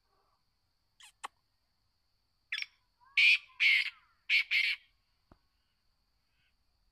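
Black francolin calling: two short notes about a second in, then its call, a quick series of five loud rasping notes, from about two and a half to five seconds in.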